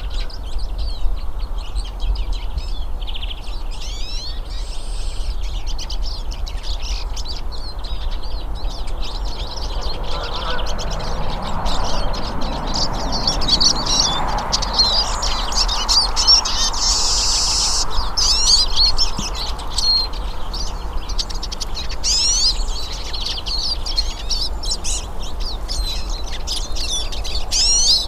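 Several hooded siskins (Brazilian pintassilgos) singing, with rapid, overlapping twittering phrases of high notes throughout and a steady low rumble underneath.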